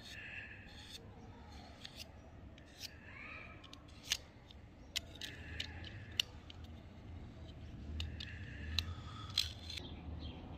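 Thin metal blade scraping hardened white filler off a revolver frame: dry, uneven scratching with several sharp clicks as the blade catches the metal edges.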